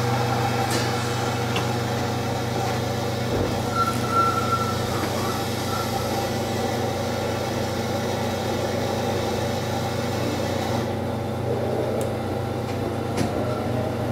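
Kintetsu electric train running, heard from inside the front car: a steady low hum at an even level, with a brief high tone about four seconds in.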